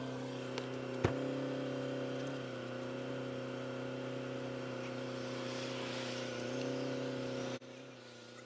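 Steady mechanical hum made of several pitched tones, with a sharp click about a second in; the hum drops away suddenly near the end.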